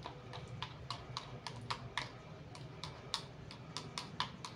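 Plastic spoon clicking and scraping against a plastic bowl as food is stirred and mashed in it: irregular light taps, about three a second.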